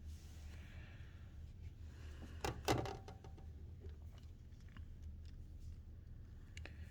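Small metal screws and a screwdriver handled on a laptop's case while test-fitting screws in their holes: two sharp clicks about two and a half seconds in, then a few faint ticks, over a low steady hum.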